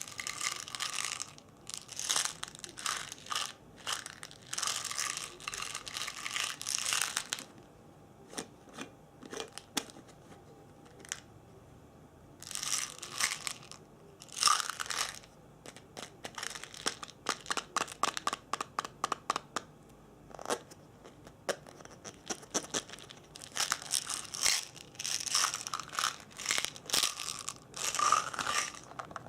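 ASMR trigger sounds: bursts of crinkling and rustling, with stretches of quick light taps and clicks in between.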